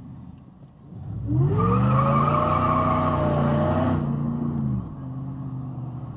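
Car engine accelerating hard from a standstill: its note climbs and holds loud for about three seconds, with a loud rush that stops suddenly about 4 s in. The note drops away about 5 s in as it shifts up.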